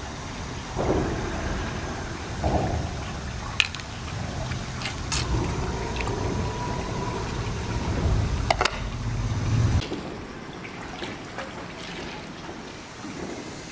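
Wet handling of opened freshwater mussel shells on stones, with a few sharp clicks of shell. The handling stops suddenly about ten seconds in, leaving a shallow stream trickling.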